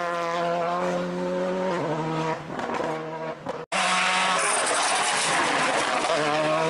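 VW Polo GTI R5 rally car's turbocharged four-cylinder engine at high revs on a fast stage, its pitch stepping down and up with gear changes. The sound cuts off abruptly a little past halfway and resumes with tyre and loose-gravel noise, and the engine climbs in pitch again near the end.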